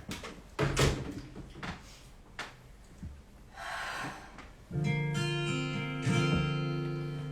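A few small knocks and rustles, then about four and a half seconds in a guitar strums a chord that rings on, strummed again about a second later: the opening of the next song.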